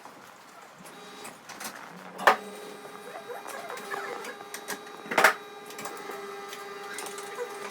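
Espresso machine pump humming steadily, with scattered clatter of barista equipment and two sharp knocks, the first about two seconds in and the second near the middle.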